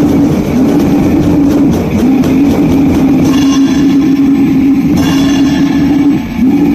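Raw, lo-fi goregrind recording: heavily distorted guitar riffing over drums in a dense, loud wall of noise, with a held low note that breaks off briefly about six seconds in.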